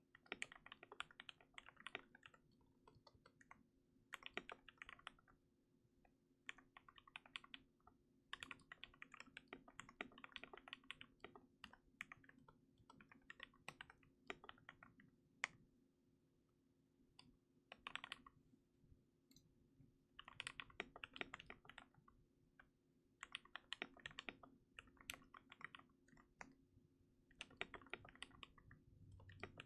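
Typing on a KBD67 MKII custom mechanical keyboard with lubed and filmed Gateron Yellow linear switches, a brass plate and a silicone-dampened case. Quick runs of keystrokes come in bursts of one to three seconds, with short pauses between them and a few single strokes on their own.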